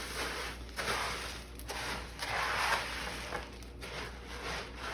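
Spatula stirring Rice Krispies cereal into melted marshmallow in a large bowl, in a few uneven strokes.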